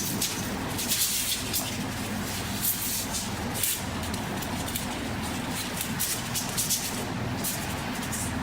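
Steady low engine-like hum, with short scratchy rasps every second or so.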